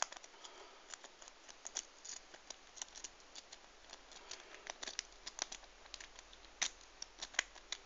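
Metal rake pick being worked in and out of the keyway of a brass padlock, its pins clicking and the pick scraping in quick, irregular runs of small sharp ticks. This is the lock being raked open under tension.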